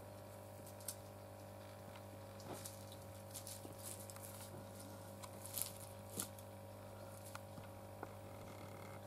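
South Island weka's feet scratching and crackling in dry grass, twigs and gravel as it walks and forages: faint scattered light ticks and rustles, busiest just past the middle, over a steady low hum.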